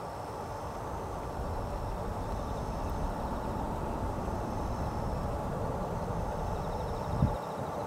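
Distant jet engine rumble of a Singapore Airlines Airbus A330-300 on final approach, its Rolls-Royce Trent 700 engines at low approach power, slowly getting louder as it nears, with wind on the microphone and a brief thump near the end.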